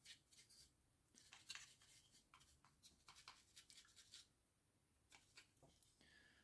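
Faint, quick scratchy strokes of a large dry brush's bristles flicking across a miniature's textured surface, several a second, with short pauses between runs of strokes.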